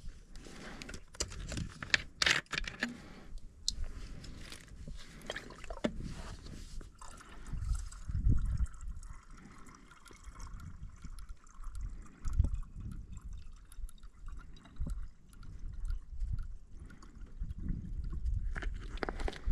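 Water trickling and dripping from a desert well's water tank, with knocks and clatter of handling among the first few seconds.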